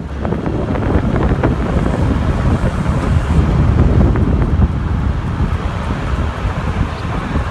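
Wind buffeting the microphone at a car's side window, over the low rumble of the car driving on the road.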